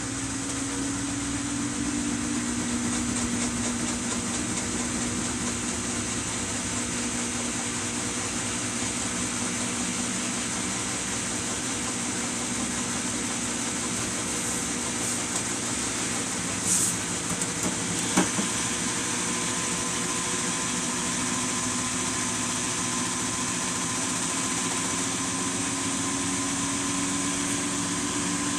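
Samsung washing machine running with a steady motor hum whose pitch drifts slowly up and down as the drum turns. There are a couple of brief clicks about two-thirds of the way through.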